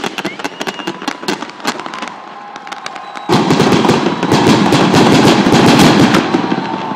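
Fireworks display: many sharp crackling pops and bangs. About three seconds in, a much louder dense crackle sets in as a volley of white comets and crackling stars fires, easing off near the end.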